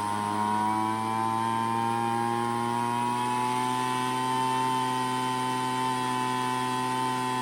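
Craftsman leaf blower engine running steadily during carburetor mixture adjustment by ear. Its pitch rises slightly over the first couple of seconds, then holds.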